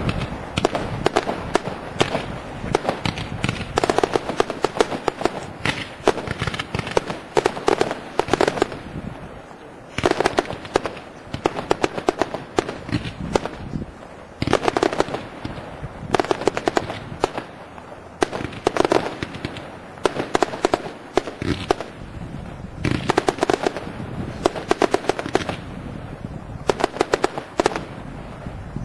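A 105-shot compact firework cake, Castle and King GPH2081, firing: dense volleys of launch shots and bangs in rapid succession. They come in waves a few seconds long with brief lulls between.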